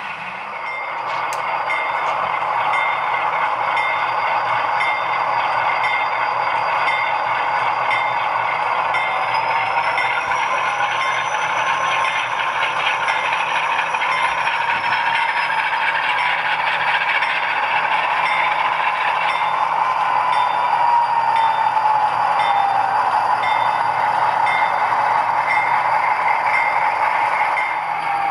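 HO-scale model diesel locomotives with LokSound sound decoders running past, their diesel engine sound coming from the small onboard speakers, mixed with the clatter of model wheels on the track. A whine rises in pitch about ten seconds in and falls again a few seconds later.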